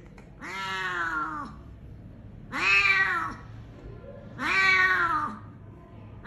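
Injured domestic cat meowing three times, each call about a second long and rising then falling in pitch, while maggots are picked out of its wound with forceps.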